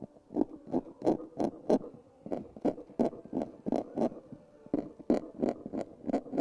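Pointed metal engraving blade scratching lines into a hardened black lacquer surface, in short scraping strokes about three a second with a brief pause about two seconds in. This is the hand-engraving of design lines into the lacquer.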